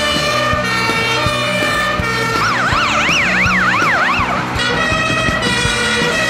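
Emergency vehicle siren, with a fast rising-and-falling yelp for about two seconds midway, over other steady siren and horn tones.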